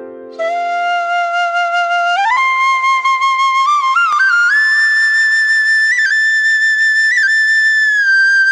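Background music: a flute melody of long held notes that steps up in pitch about two seconds in and slides higher midway, with small ornaments, after a brief opening chord.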